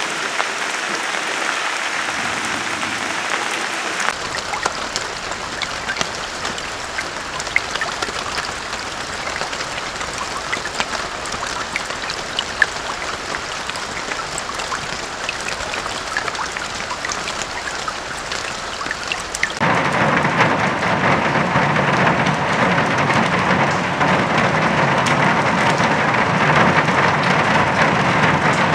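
Rain falling, with separate drops ticking sharply on a surface. About four seconds in the texture changes, and near twenty seconds in it cuts abruptly to a louder, heavier downpour with a deeper rush.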